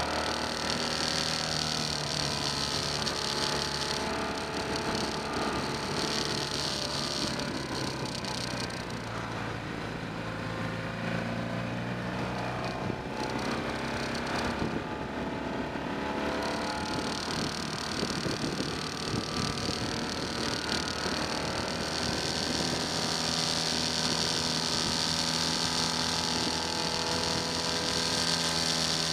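Touring motorcycle engine running on the move, its pitch rising and falling with the throttle through the bends. A rushing hiss of wind and road noise fades around the middle and returns near the end.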